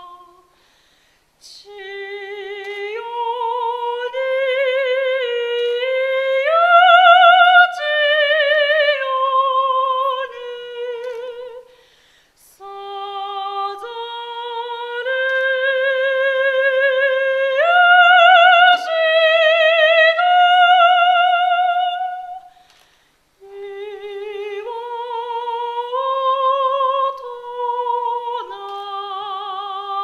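Background music: a woman's voice singing a slow, unaccompanied melody with a wide vibrato, in three long phrases with short breaths between them.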